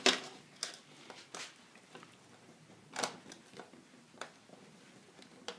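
Scattered clicks and light knocks of plastic light-switch plates and wires being handled on a tabletop, with a sharper knock about three seconds in.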